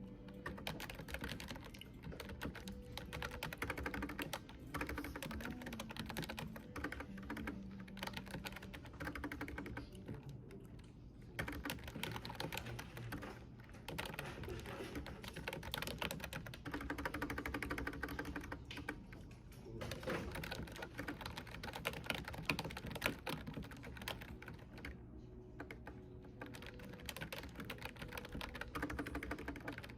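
Typing on a computer keyboard: a fast, steady run of keystroke clicks with brief pauses now and then.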